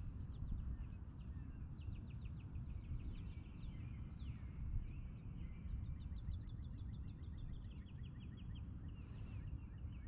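Songbirds singing: chirps and rapid trills, including a run of evenly spaced repeated notes in the middle, over a steady low outdoor rumble.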